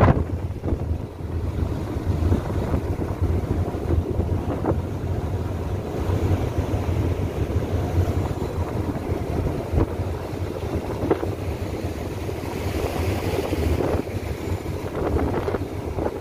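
Wind buffeting the microphone over the steady low rumble of a ship under way and the rush of its churning wake.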